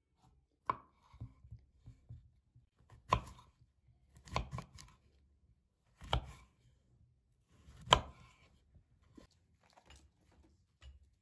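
Kitchen knife cutting through raw quince and knocking on a wooden cutting board: five sharp, irregularly spaced knocks with fainter cutting sounds between them.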